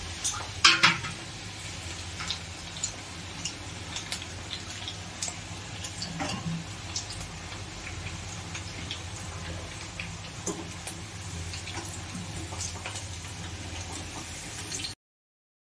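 Steady low hum with scattered small clicks and crackles, the loudest crackles about a second in. The sound cuts off abruptly near the end.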